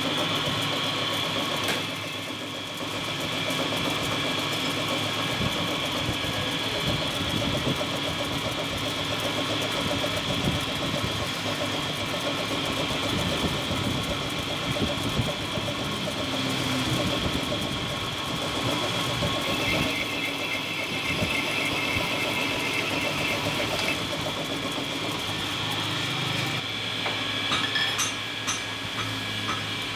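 Metal lathe running with its chuck spinning, turning a Honda CD front fork part against the cutting tool: a steady machine hum with several fixed tones. A few sharp clicks come near the end.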